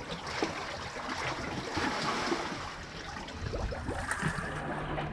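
Shallow seawater lapping and sloshing against the rock inside a small sea cave, with scattered small splashes and drips.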